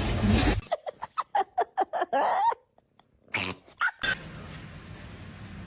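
A pet animal making a quick run of short pitched calls, the last one rising, then after a pause two more calls.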